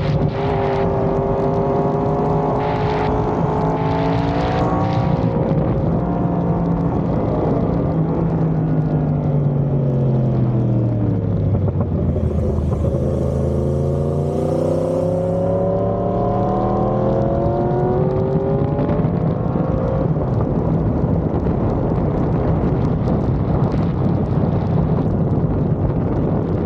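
Yamaha YZF-R1's inline-four engine through an aftermarket GP exhaust, heard while riding. The engine note falls steadily for about ten seconds as the bike slows, then rises again as it accelerates, and holds steady near the end.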